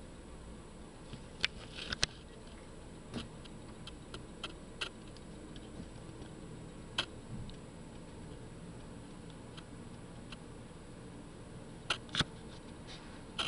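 Scattered light clicks and taps at irregular spacing over a faint steady room hum, with the loudest pair about two seconds in and another pair near the end.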